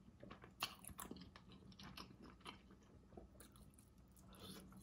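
Faint close-up eating sounds of boiled shrimp in sauce: soft, scattered wet clicks and smacks of chewing, licking and peeling.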